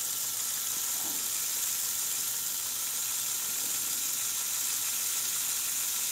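Small LEGO electric motor running the modulator's crankshaft and switch mechanism: a steady, high whirring hiss with a few faint steady tones under it.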